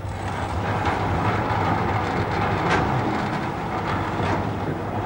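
Steam train of the 3-foot-gauge Isle of Man Railway on the move: a steady rushing noise over a low rumble, with sharper strikes roughly once a second. It swells up at the start.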